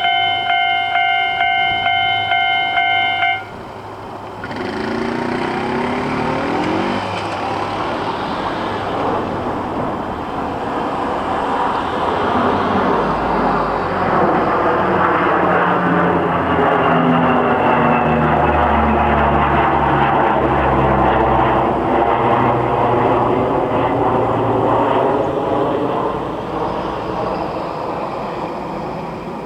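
Level-crossing warning alarm ringing in a steady pulsing tone, cutting off about three seconds in. A vehicle then approaches and passes close by; its noise builds, holds loud for several seconds and eases off near the end.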